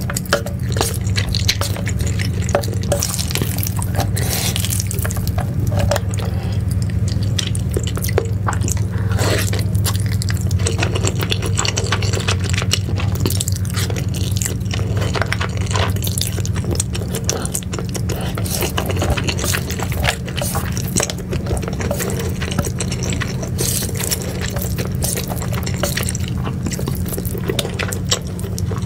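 Close-miked wet eating sounds of saucy, cheesy noodles: slurping, squishing and chewing, dense with small sticky clicks, and now and then a tap of chopsticks on the bowl or metal tray, over a steady low hum.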